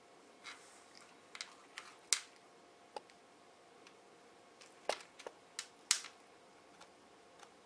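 Irregular sharp taps and clicks, about a dozen, from a cat playing with a feather toy on a cord on a wooden floor: its paws and the toy knocking on the floorboards. The two loudest snaps come about four seconds apart.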